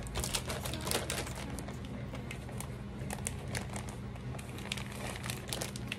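Plastic bag of shredded cheese crinkling as it is picked up and handled, in irregular crackles, over a low steady hum.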